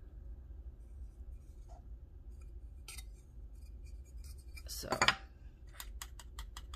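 Small plastic containers handled on a wooden tabletop: a brief rustle and knock about five seconds in as a clear plastic jar is moved and set down, then a quick run of light clicks. A steady low hum lies underneath.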